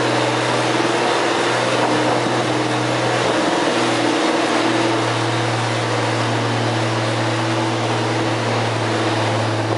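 John Deere farm tractor engine running hard under full load as it pulls a weight sled, a steady drone that holds its pitch, wavering briefly about four seconds in.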